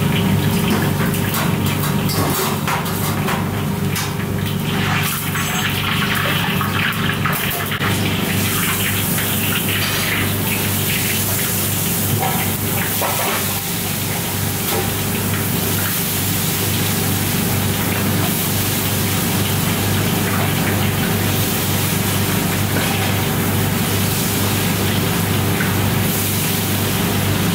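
Battered chicken deep-frying in a wok of hot oil: a steady hiss of sizzling oil over a steady low hum. In the first several seconds the sound is more crackly, with scattered pops, before it settles into the even sizzle.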